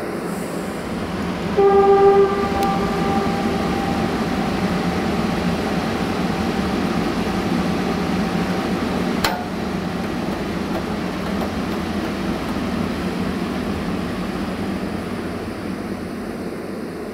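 Railway passenger coaches rolling slowly past on the rails with a steady rumble. A locomotive horn gives one short blast about two seconds in, and there is a single sharp click about nine seconds in.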